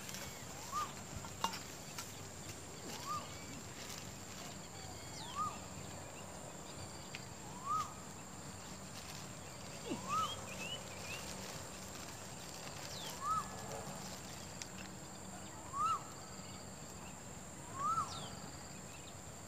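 A short rising-and-falling animal call, repeated about every two to three seconds, over a steady high whine.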